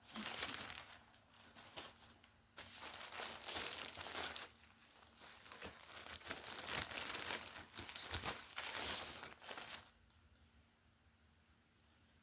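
Plastic packaging being handled and torn open: irregular crinkling and rustling in bursts, stopping about ten seconds in.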